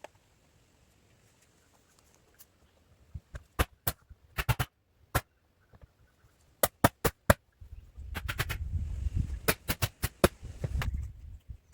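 Irregular sharp knocks, single and in quick clusters, starting about three seconds in, with a low rumble under the last few seconds.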